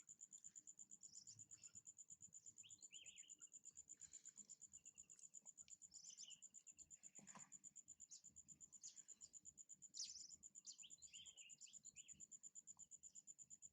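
Faint outdoor ambience: an insect, such as a cricket or cicada, trills steadily on one high, fast-pulsing note, while short high chirps, likely from birds, come and go over it.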